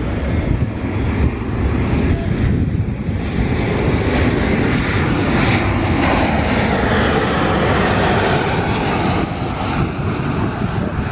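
Boeing 737 airliner's twin jet engines passing low overhead on landing approach, the engine noise swelling to its loudest around the middle and easing off near the end.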